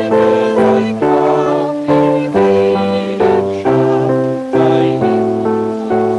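A church hymn sung by solo voices with electronic keyboard accompaniment, the chords changing about twice a second at a steady pulse.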